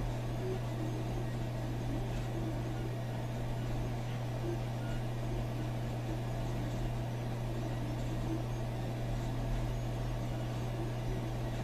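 Steady hum and fan noise from a running Commodore PC 10-II, an IBM XT–class computer, with nothing else changing: the machine has hung at boot after loading the PCturbo 286e driver.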